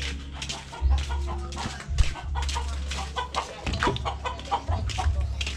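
Domestic chickens clucking, a quick string of short clucks several a second, over a low steady hum.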